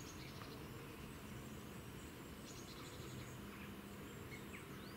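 Faint outdoor ambience: a steady low background rumble with a few scattered bird chirps and short trills.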